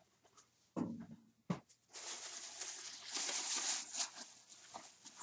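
Plastic bag rustling and crinkling as a DVD is dug out of it, loudest from about two seconds in, after a couple of soft thumps.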